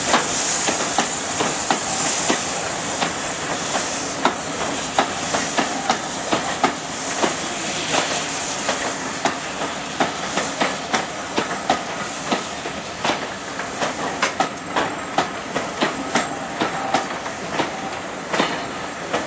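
Passenger coaches rolling past behind a departing steam locomotive, their wheels clicking over rail joints many times, with a steam hiss that fades over the first few seconds.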